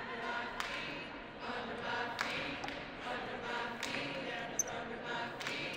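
A crowd of protesters singing together, with a few sharp claps or knocks at uneven spacing.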